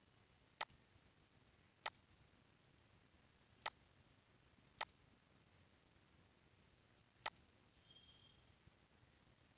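Computer mouse button clicked five times at uneven intervals, each a sharp click with a fainter second tick right after it (press and release), over near-silent room tone.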